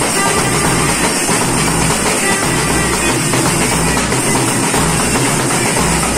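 A small street band of clarinets and large bass drums playing together, the drums beating a steady rhythm under the clarinet melody.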